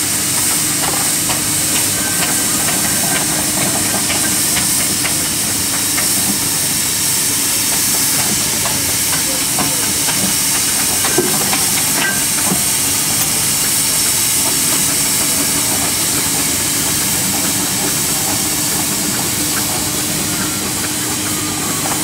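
Steam road roller letting off steam: a loud, steady hiss that does not change, with one sharp tick about halfway.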